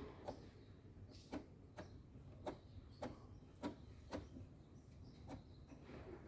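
Faint, sharp clicks at uneven intervals, about ten of them, from the control panel of an Ariston washing machine as the spin-only program is selected.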